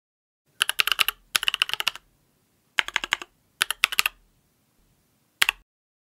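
Mechanical keyboard with lubed and filmed Gateron Black Ink linear switches, a brass plate and GMK keycaps, typed on in short bursts of rapid keystrokes: four bursts in the first four seconds, then a brief one near the end.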